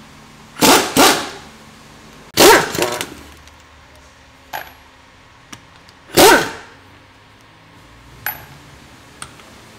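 Pneumatic impact wrench on the wheel bolts of a VW Golf GTI, run in short bursts: two close together near the start, another about two and a half seconds in and one more about six seconds in, with a few light clicks between as sockets and bolts are handled.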